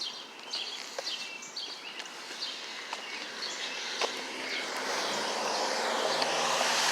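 Outdoor ambience with scattered faint bird chirps and a few light clicks; from about four seconds in, a low steady hum swells and grows louder.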